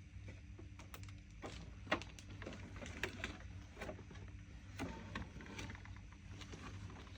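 Small objects being handled and set down on a table: a scatter of light clicks, taps and rustles, the sharpest knock about two seconds in, over a steady low hum.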